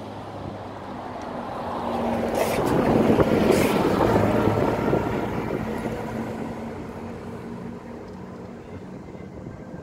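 City bus driving past close by, its engine and tyre noise swelling to a peak about three to four seconds in, with brief hisses near the loudest point, then fading away.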